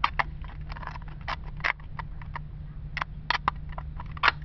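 Thin aluminium drink-can wall crackling and clicking irregularly as fingers flex it and press out a disc scored around with a craft knife.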